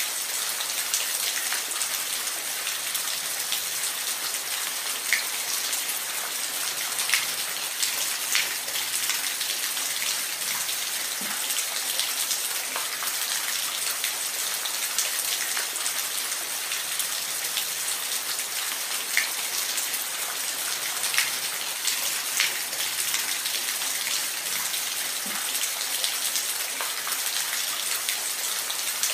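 Waterfall: a steady hiss of falling water, mostly high with little low rumble, with scattered single drops and splashes standing out now and then.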